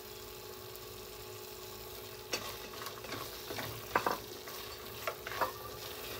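Dried beef (quanta) sizzling in a stainless steel pan of spiced butter sauce. From about two seconds in, a wooden spoon stirs it through, with several sharp scrapes against the pan.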